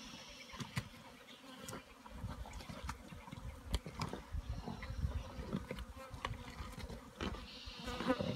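Flies buzzing steadily around a giraffe carcass, with scattered cracks and crunches as spotted hyenas and vultures feed on it.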